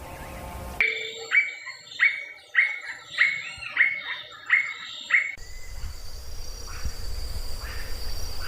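Squirrel cuckoo (alma-de-gato) calling a series of about eight repeated whistled notes, roughly 0.6 s apart, that stops suddenly after about five seconds. Outdoor background noise with a faint steady high insect-like tone follows.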